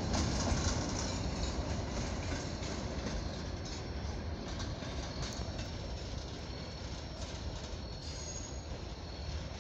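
Freight train rolling on the rails, its rumble and wheel noise slowly fading, with a faint high-pitched wheel squeal on the curve from about the middle on.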